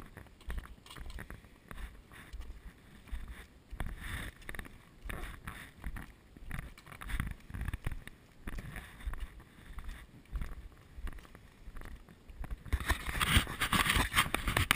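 Walking footsteps on a concrete path jolting a body-worn camera, a steady rhythm of low thumps about twice a second. Near the end a louder hissing noise comes in.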